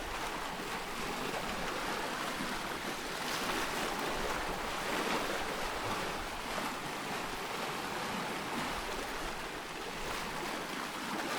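Steady rushing noise with no tones, swelling and easing slightly in loudness.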